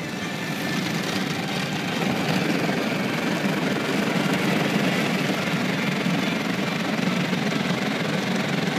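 Automatic car wash heard from inside the car: water spray and brushes sweeping over the windshield and body, over a steady low machine rumble. It gets louder about two seconds in.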